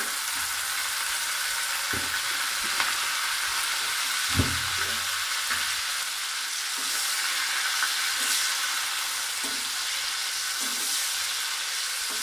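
Browned onions and freshly added green chillies sizzling in hot mustard oil in an aluminium pot, with a steady hiss. A slotted metal spatula stirs and knocks against the pot now and then, loudest about four seconds in.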